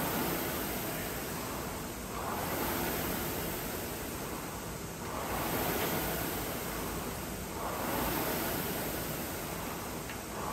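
Concept2 rowing machine's air flywheel whooshing, swelling and fading in even waves about every three seconds as each rowing stroke spins up the fan.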